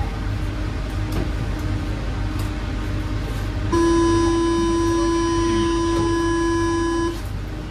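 Paris Métro door-closing warning buzzer: one steady electronic buzz lasting about three and a half seconds, starting about halfway through and cutting off sharply, over the low hum of the stopped train. It signals that the doors are about to close.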